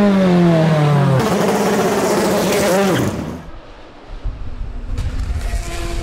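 Racing car engines. A loud engine note falls steadily in pitch through the first second or so, turns rougher with a brief rise near three seconds, then drops away to a quieter low rumble, with a single click about five seconds in.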